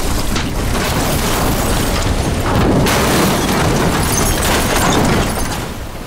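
Oil geyser erupting from a sinkhole: a loud, continuous rushing noise that surges about three seconds in and eases off near the end.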